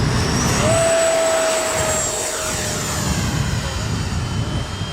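Electric ducted fan of an FMS F-18 RC jet whining and rushing as the model flies past, loudest about a second in, with its whine falling slightly in pitch as it goes by.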